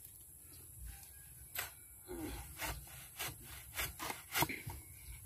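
Metal bar worked into the soil around the base of a post, packing the hole. It makes an irregular run of about six short, gritty scraping strokes.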